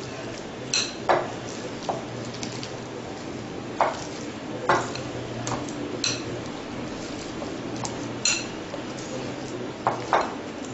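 Thick potato pakora batter being mixed by hand in a glass bowl: soft mixing sounds with scattered sharp clinks against the glass, over a steady low hum.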